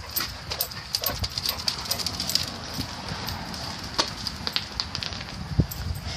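Dogs playing rough and scuffling, with a run of small sharp clicks and scrapes.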